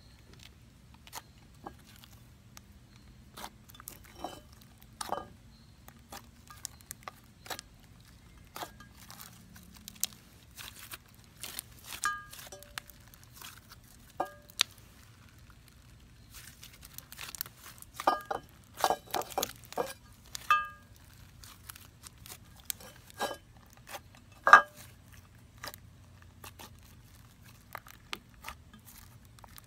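Slime mixed with Model Magic clay being kneaded, squeezed and stretched by hand in a glass dish: irregular sticky clicks and pops, some sharp, coming thickest about two-thirds of the way through.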